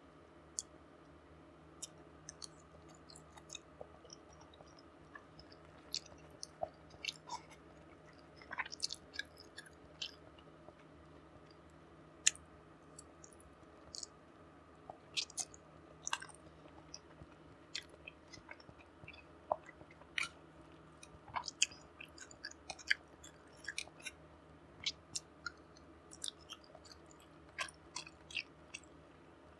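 Close-miked eating: chewing and mouth sounds, with irregular sharp wet clicks and soft crunches every second or so, over a faint steady hum.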